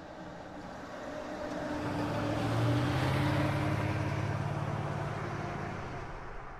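A motor vehicle passing by: low engine running and road noise swell to a peak about three seconds in, then fade away.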